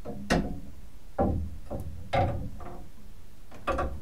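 Metal parts of the tower clock's clockwork clanking as they are handled and set down: about six separate knocks, each ringing briefly.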